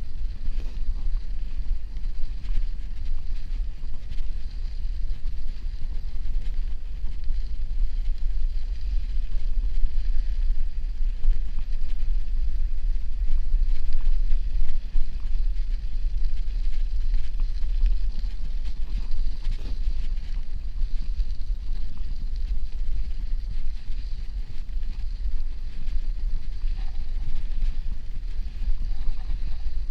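Steady low wind rumble buffeting the microphone of a bicycle-mounted camera, mixed with the noise of bicycle tyres rolling over a snow-covered path.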